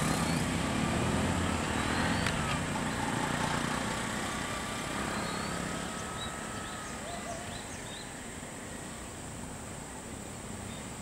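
Engines of stopped vehicles idling at a low hum that eases off after about four seconds, over a steady outdoor background hiss. A bird chirps a few quick notes midway.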